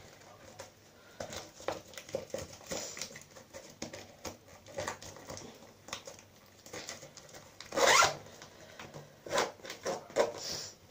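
Zipper on a clear plastic toiletry bag being worked in short strokes, with the rustle of the plastic being handled; the loudest stroke comes about eight seconds in.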